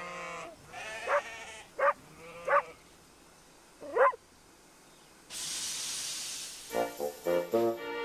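Sheep bleating: about five short bleats over the first four seconds. Then a hiss lasting about a second and a half, and orchestral background music starting near the end.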